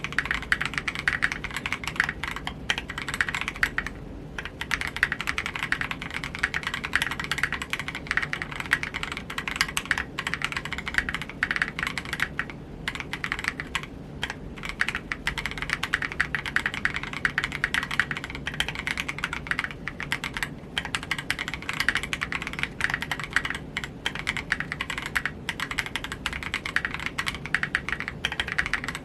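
Steady typing on a custom 60% mechanical keyboard: a KBDFans Tofu60 aluminium case with a polycarbonate plate, lubed Gazzew Boba U4T tactile switches and KAT-profile PBT keycaps. The keystrokes come in a fast, uneven stream, with a few short pauses.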